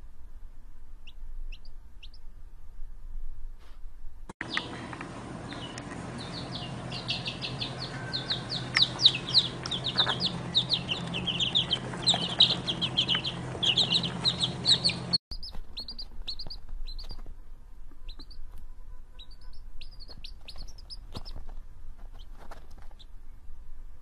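Chicken chicks peeping: sparse short, high, falling cheeps. In the middle, for about ten seconds, dense rapid chirping plays over a low hum, then cuts back to the sparse peeps.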